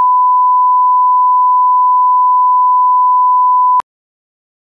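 Broadcast line-up tone: a steady, loud single-pitch 1 kHz reference tone accompanying colour bars, which cuts off abruptly near the end.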